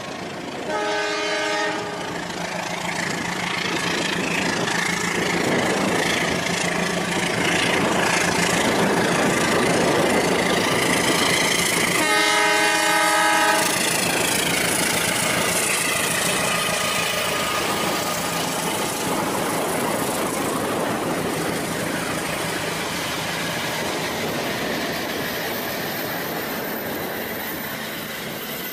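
Rail King toy train running, with its horn sounding twice: a short blast about a second in and a longer one about twelve seconds in, over a steady running noise.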